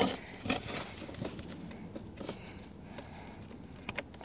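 Small plastic clicks and rustling as fingers press the locking tab and work the wiring connector off a Honda/Acura VSA switch, with a brief louder knock at the start.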